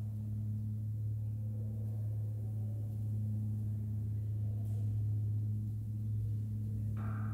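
A steady low drone: one deep tone with a fainter tone an octave above it, held without change. A higher, noisier sound comes in near the end.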